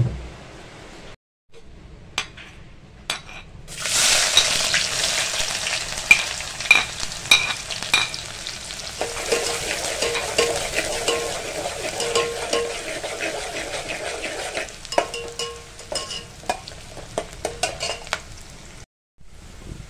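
Sliced onions frying in hot oil in a metal pot, sizzling loudly from about four seconds in, while a perforated metal skimmer stirs them, clicking and scraping against the pot.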